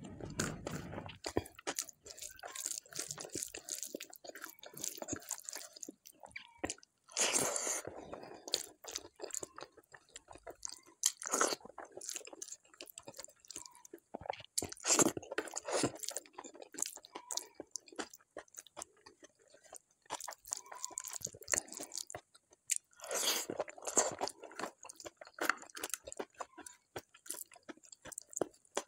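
Close-miked mouth sounds of a person eating rice and bharta by hand: steady chewing with wet clicks and smacks, and a few louder bites.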